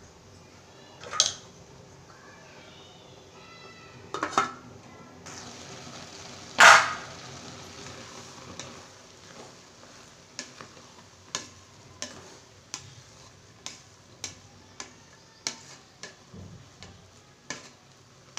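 A spatula stirring cooked rice in an aluminium pot, knocking against the pot's side in a steady series about every half second to second through the second half. Earlier come three louder clatters of the pot and utensils.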